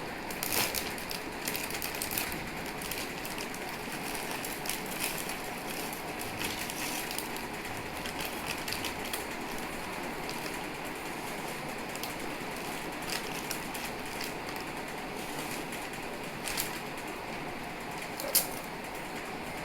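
Potato chips being crunched and chewed: a run of irregular crisp crackles and clicks, with a few sharper, louder cracks.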